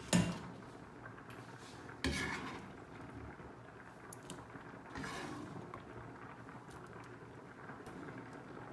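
A glass bowl set down on a plastic cutting board with a sharp knock. Then a knife blade scrapes diced tomatoes across the board into the bowl, once about two seconds in and again about five seconds in.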